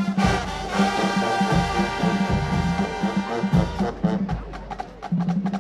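Marching band playing: brass hold a long chord over bass drum hits, then thin out to lower sustained notes and percussion near the end.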